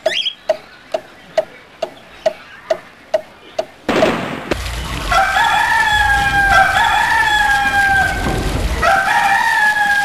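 Regular ticking, about two ticks a second, then a sudden loud noise about four seconds in, followed by a rooster crowing in long, drawn-out calls, twice.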